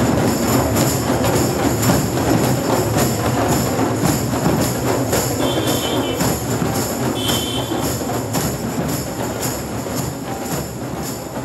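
Drum circle: many djembes and hand drums played together in a dense, steady rhythm, with jingling percussion over the top, gradually fading out.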